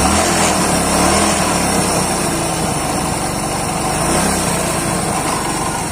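Hero Splendor's single-cylinder four-stroke engine running and being revved, rising in pitch near the start and again about four seconds in, with a rattling, clattering noise from the crank. The mechanic puts the noise down to end play in the crankshaft, curable by shimming under the two crank bearings.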